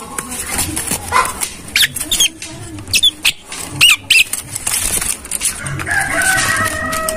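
Caged Javan myna calling: short, sharp rising whistles and squawks through the middle, then a held multi-pitched call near the end, with scattered sharp flaps and clatters. The uploader takes these calls for a bird in breeding mood.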